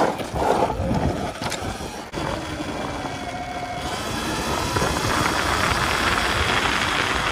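Wind and road noise from a Segway X260 electric dirt bike being ridden at speed, with a faint steady high whine from its electric motor. The rush grows gradually louder over the last few seconds.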